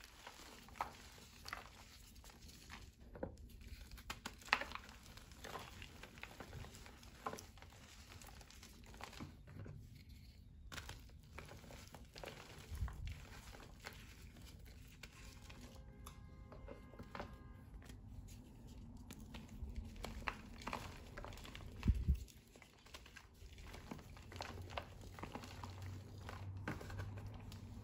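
Hands crushing and rubbing powdery reformed gym chalk, giving a soft, continuous crumbling and crackling with scattered small crunches. A few louder knocks stand out, about four and a half and twenty-two seconds in.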